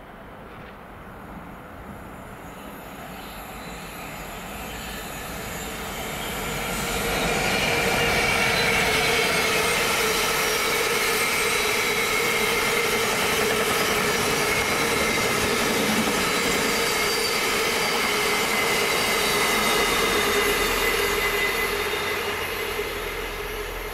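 Freight train hauled by a Class 66 diesel locomotive, its two-stroke V12 growing louder as it approaches, then a long rake of loaded box wagons rolling past at speed. Steady wheel squeal sings over the rumble of the wagons. The noise builds over the first several seconds, holds loud and steady, and starts to fade near the end.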